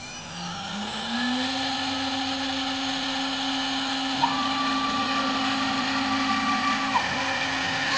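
i2R CNC router spindle spinning up with a rising whine, then running steady. From about four seconds in until about seven, a second, higher whine joins it as the gantry travels the spindle across the board.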